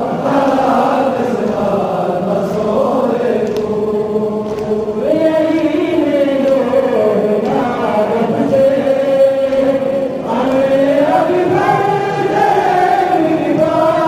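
A large group of men chanting a Muharram noha (mourning lament) together, in a slow melody with long, gliding held notes and a brief pause about ten seconds in.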